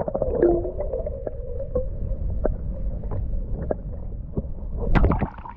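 Muffled sound from a microphone held under the lake surface: a steady low water rumble with scattered sharp clicks. A wavering gurgle runs through the first two seconds, and a louder rush comes near the end.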